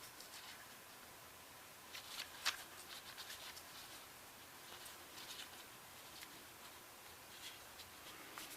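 Faint, scattered small clicks and scrapes of parts being handled during the teardown of a Ramset 122MD powder-actuated tool, with one sharper click about two and a half seconds in.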